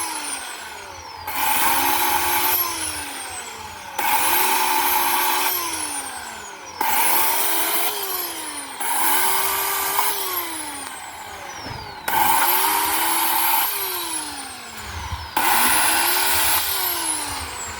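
Chainsaw cutting into a tree trunk, the throttle opened in repeated bursts about every two to three seconds, each one rising in pitch and then sagging as the chain bites into the wood.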